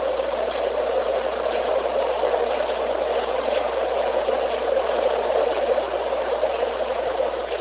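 Steady, loud hiss of static, strongest in the low middle of the range, with faint crackles through it.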